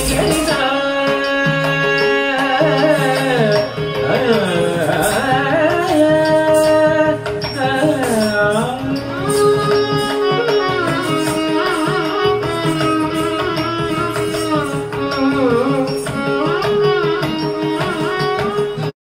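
Carnatic music for a Bharatanatyam dance: an ornamented melody that slides between notes over a steady drone, with drum strokes. It cuts off suddenly near the end.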